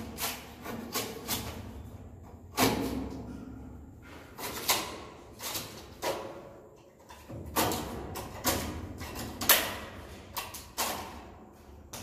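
Irregular knocks and thuds, about a dozen, each echoing briefly in a bare enclosed room, with a faint steady high-pitched tone underneath.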